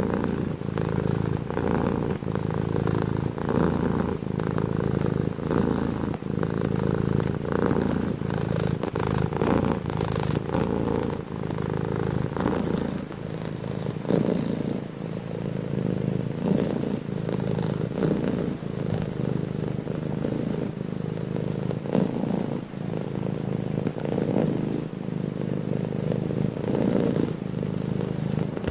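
A domestic cat purring continuously and close, with a low rumble that swells and eases in a steady rhythm.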